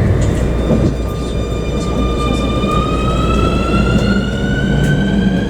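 Keikyu New 1000 series electric train's traction motors and inverter whining as the train accelerates: the whine holds one pitch for about two seconds, then rises steadily, over the low rumble of the running train.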